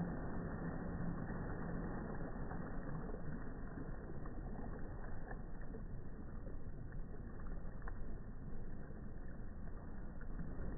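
Pool water splashing and sloshing as people move about in it, with a low steady hum in the first few seconds.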